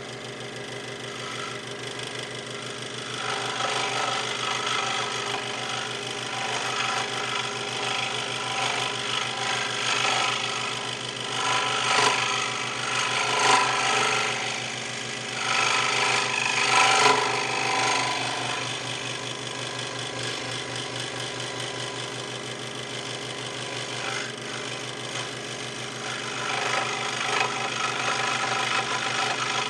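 WEN 3921 scroll saw running, its thin blade reciprocating as it cuts through a pine board a little under an inch thick. It makes a steady mechanical running sound that grows louder in stretches: a few seconds in, through the middle, and near the end.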